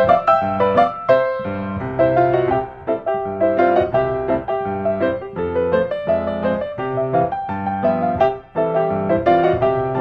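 Background piano music, a steady run of quick, bright notes.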